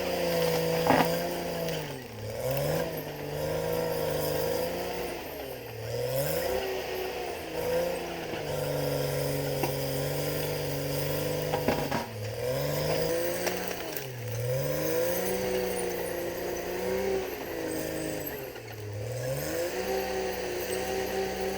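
CAT D6R XL bulldozer's diesel engine running at high revs, its pitch sagging and recovering about five times as it bogs under load while pushing soil. There are a couple of sharp knocks.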